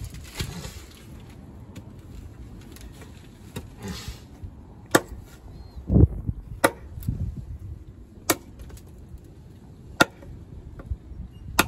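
A freshly sharpened handmade knife chopping into a wooden board to test its edge: six sharp chops, starting about five seconds in and coming one to two seconds apart. The second chop is the loudest, with a deeper thud.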